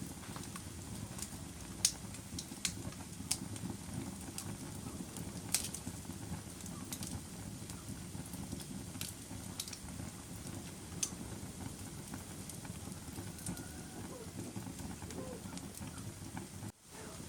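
Wood fire crackling in a fireplace: a steady low rumble of burning with sharp pops scattered irregularly throughout, the loudest about 2 s and 5.5 s in. The sound cuts out for a moment shortly before the end.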